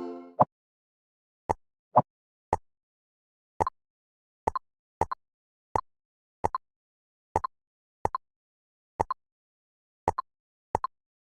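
Short plopping sound effects of a digital jigsaw puzzle game as pieces are dropped into place, one or two a second at an uneven pace, some in quick pairs, with dead silence between them.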